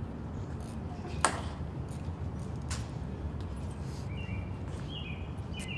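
Sharp clicks of a ceremonial guard's metal-tapped dress shoes striking the stone plaza, two clear strikes about a second and about three seconds in, over a steady outdoor background. A few faint high chirps sound near the end.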